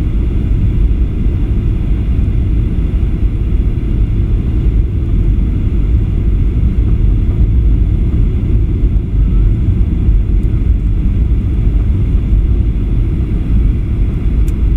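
Steady cabin rumble of a Boeing 737-800 airliner on approach, from its CFM56 turbofan engines and the airflow past the fuselage, with a faint steady high whine above it.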